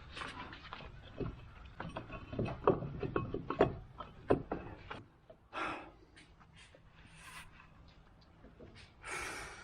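Irregular clicks and knocks of hand tools and metal parts being handled during car repair work, busiest in the first half, then sparser, with a short breathy rush near the end.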